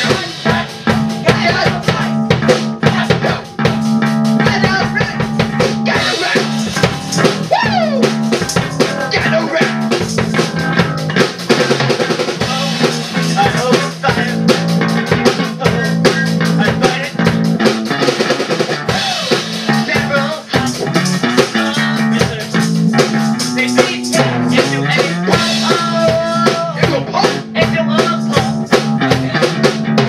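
Amateur rock band jamming: a Pearl drum kit played with fast, dense hits on snare, bass drum and rims, under sustained low electric guitar notes with occasional bends.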